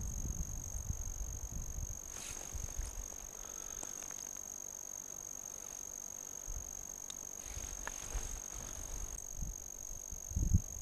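Handling noise as an angler jigs a small ice-fishing rod and works the line by hand: uneven low rumbling and soft rustles of clothing, with a short thump near the end. A thin, steady high tone runs underneath.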